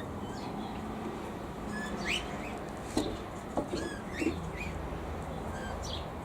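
Aviary birds chirping, with short calls scattered throughout over a steady low hum; a few soft knocks come about three to four seconds in.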